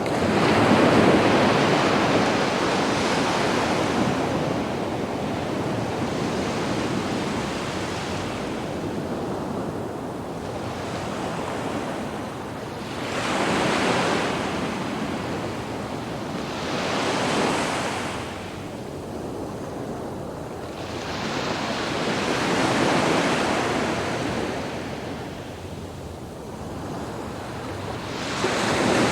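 Sea waves breaking and washing up a sandy beach, each surge swelling and fading over a few seconds, with the loudest surges near the start and at the end.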